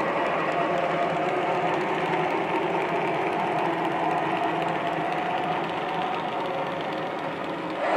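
O-scale model freight cars rolling over three-rail track, their wheels making a steady, fast clatter that eases slightly near the end as the caboose goes by.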